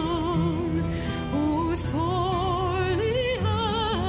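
Background music: a slow, tender melody in long held notes with vibrato over a steady low accompaniment, with a change of note about two seconds in and another about three seconds in.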